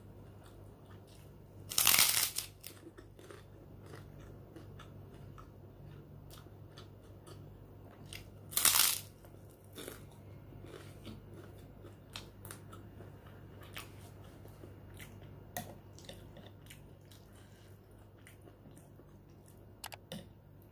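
Two loud crunches of a person biting into a puffed white kerupuk cracker, about two seconds in and again near nine seconds, with quieter crunchy chewing between.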